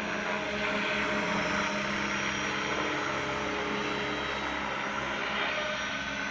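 Several radio-controlled model helicopters (Align T-Rex 500, 600 and 700) flying together, a steady whir of rotor blades with several steady whining tones layered over one another.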